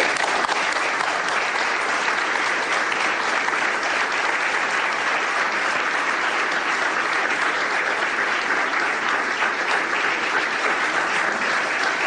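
An audience applauding with dense, steady clapping.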